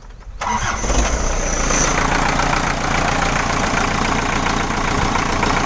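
Isuzu Elf 4JG2 diesel engine restarted: it cranks and catches about half a second in, then settles into a steady idle. It starts at once, its hard starting cured by a new fuel filter.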